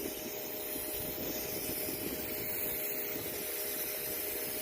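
Portland electric pressure washer running steadily: a constant motor hum under the even hiss of the water spray.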